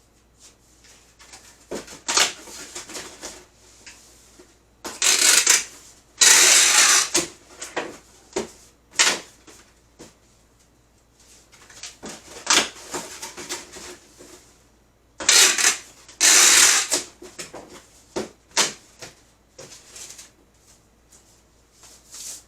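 Cardboard shipping boxes being handled and prepared: scattered knocks and clicks, with two spells of longer scraping and rasping about ten seconds apart.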